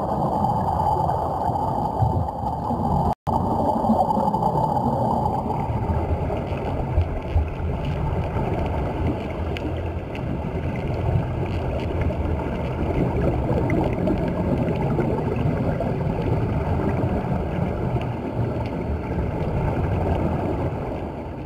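Underwater noise picked up by a submerged camera: a steady low rushing of water and streaming air bubbles from the walkers' air-fed diving helmets. The sound cuts out for an instant about three seconds in.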